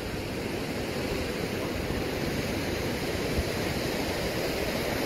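Fast-flowing muddy floodwater rushing past a concrete dam spillway, a steady low rush of water with one soft bump a little past three seconds in.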